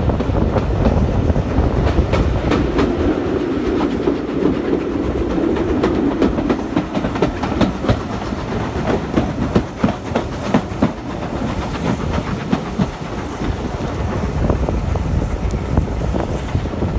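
Heritage railway carriages running along the line, heard from an open carriage window: a steady rumble of the running gear with the wheels clicking irregularly over the rail joints.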